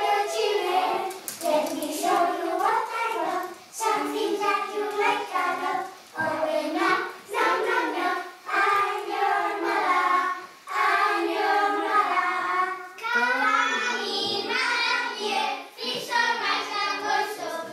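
A group of children singing a song together.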